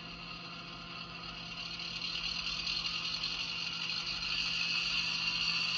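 Sound decoder of an HO-scale Walthers PROTO EMD GP7 model locomotive playing a diesel engine sound through its small onboard speaker. It runs steadily with a constant low hum and grows louder from about two seconds in.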